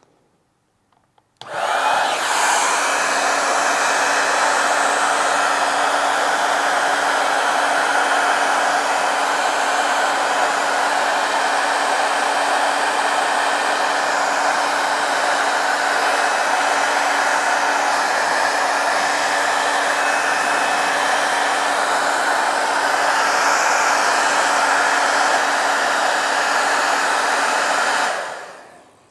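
Electric hot-air blower switched on about a second and a half in, running steadily with a rush of air over a constant low hum, then switched off and winding down near the end. It is warming Sno-Seal beeswax so it melts into leather work gloves.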